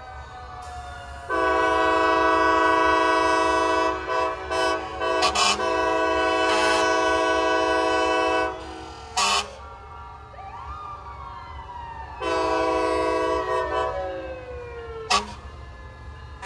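Multi-chime air horn sounding a long chord, from about a second in for some seven seconds with a few brief breaks, then again for about two seconds later on. A siren winds down in pitch under it, and there are two short sharp blasts in between.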